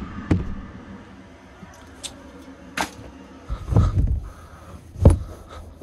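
Scattered knocks and clicks from handling the fittings of a small camper, with a heavier thump about five seconds in as the sofa's upholstered bench seat is moved.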